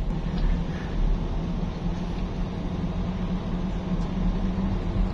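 Car engine and road noise heard from inside the cabin while driving: a steady low drone.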